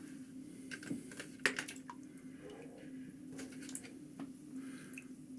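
Irregular clicks of typing on a computer keyboard over a steady low hum.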